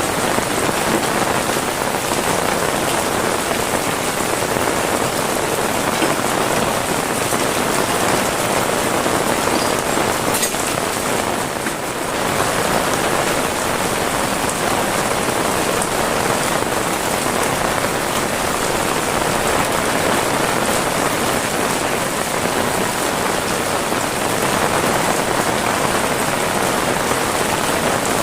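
Heavy rain falling steadily, a dense even hiss of drops on surfaces, dipping slightly in level about twelve seconds in.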